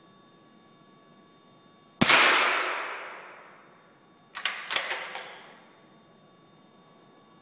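A single small-bore .22 rifle shot in an indoor range, its report ringing away over about a second and a half. About two seconds later comes a quick run of four or five metallic clicks as the bolt is worked to eject the case and load the next round.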